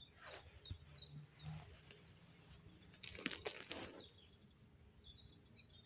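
Faint outdoor background with a few short, high chirps in the first second and a half and a brief rustle about three seconds in.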